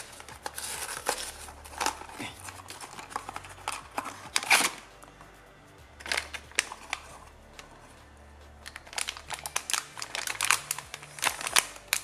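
Cardboard blind box torn open by hand, then the foil pouch inside crinkled between the fingers: irregular rustles and crackles, with a quieter gap about two-thirds of the way through.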